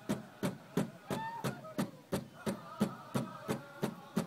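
Powwow drum struck in a steady, even beat of about three strokes a second, with faint high voices over it, typical of the singers who accompany the dancers.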